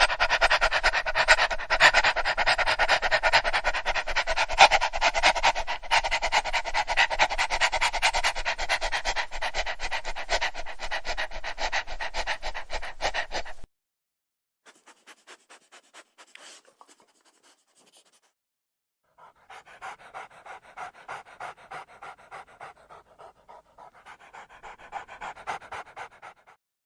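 A dog panting fast: a loud, rapid run of short breaths that stops about halfway through. After short pauses come two quieter stretches of panting, the last one slower, at about two breaths a second.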